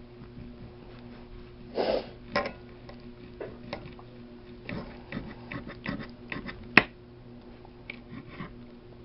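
Close-up eating sounds: irregular chewing and mouth smacks with small clinks, and one sharp click about seven seconds in, over a steady low electrical hum.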